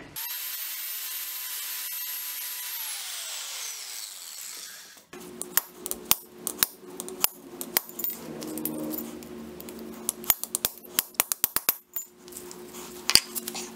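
An electric grinder runs with a steady whine while grinding a roller-chain pin flush, then spins down with falling pitch. After that, a hammer strikes a punch again and again to drive the pin out of the chain link, giving a series of sharp metal taps that come fastest near the end.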